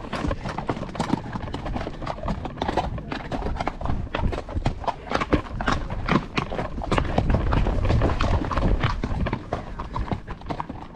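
Horse walking downhill on a trail, its hooves clip-clopping in an uneven rhythm of sharp strikes.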